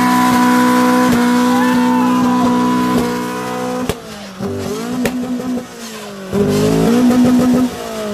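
Car engine held at high revs in a tyre-smoking burnout: a steady high note for about three seconds, then the revs dip and climb a few times, hold high again, and fall away near the end.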